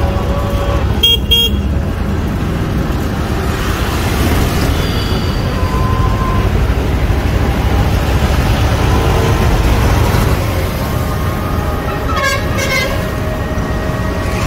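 Road rumble and wind noise of riding in an open-sided electric rickshaw through city traffic, with short vehicle horn toots about a second in and again, in quick repeats, near the end.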